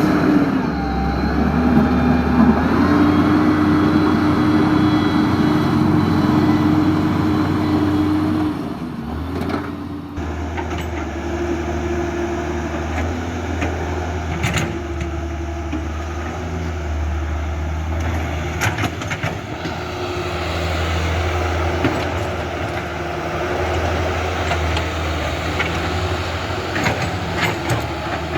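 Huina radio-controlled model excavator working: a steady low engine-like hum under an electric motor whine that comes and goes and shifts pitch as the machine moves, with a few scattered clicks.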